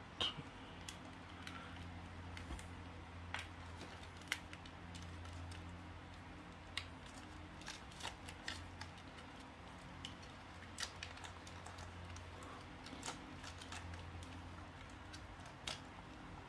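Scattered light clicks and taps of hard plastic as a wrist strap is fitted onto a plastic toy transformation device, the DX Yodon Changer, over a faint steady low hum.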